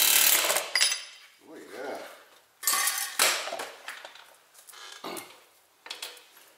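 A power tool's motor runs down and stops just after the start. Then hand tools and steel parts clink and clatter, with two sharp metal knocks about half a second apart at around two and a half to three seconds in.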